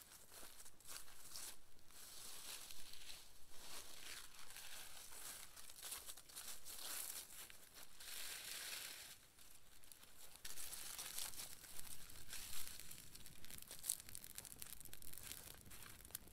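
Dry leaves and brush rustling and crackling with many small snaps as a smouldering brush pile is kindled into flame.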